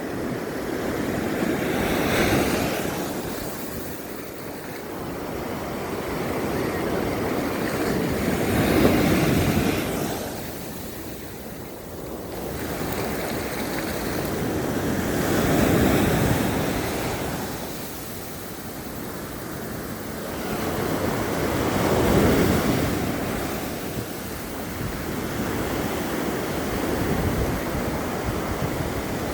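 Ocean waves breaking and washing up onto a sandy shore. The surf swells and ebbs in slow surges, peaking about every six to seven seconds.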